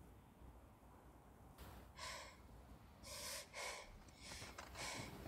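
Near silence for about a second and a half, then a series of short, breathy gasps and sighs from a voiced character breathing heavily.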